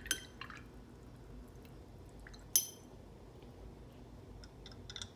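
Light clinks of a paintbrush against a porcelain watercolour palette. The loudest is a single sharp, ringing clink about two and a half seconds in, with a few soft ticking taps near the end.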